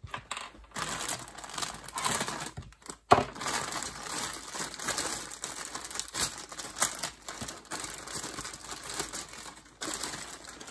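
Clear plastic bag crinkling and rustling as it is handled and a bundle of plastic model kit sprues is pulled out of it, with the sprues clicking against each other. A sharp snap about three seconds in is the loudest moment.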